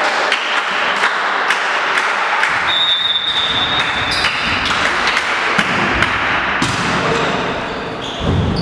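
Volleyball rally in a large sports hall: repeated thuds and taps of the ball being struck, among players' footfalls and general hall noise.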